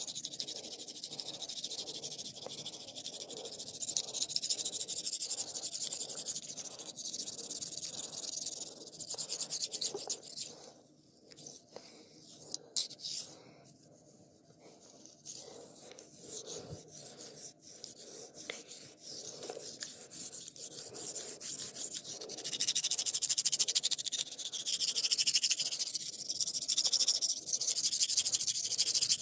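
Hands rubbing and scratching over a customer's hair and skin in a barber's massage: a dry, rasping rubbing made of many short strokes. It falls almost silent for a few seconds midway, then comes back louder toward the end.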